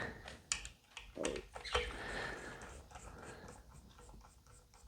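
A dog snorting and breathing close by, with a few light clicks and taps of small parts being handled on a workbench.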